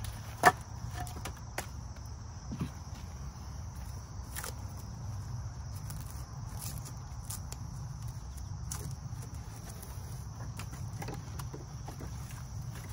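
Steady high-pitched insect drone, with a sharp knock about half a second in and a few fainter knocks and clicks as split firewood is handled.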